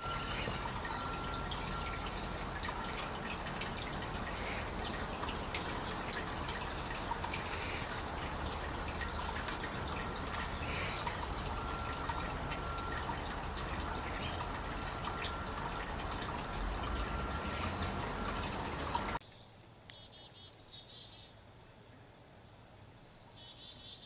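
Water pouring steadily from a spout, with a small songbird's short, high chirps over it. A few seconds before the end the water sound cuts off abruptly, leaving a few more isolated high chirps.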